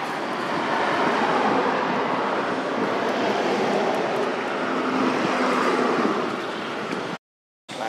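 Steady rushing engine noise from a passing vehicle, swelling a little and fading back. It cuts off abruptly to silence near the end.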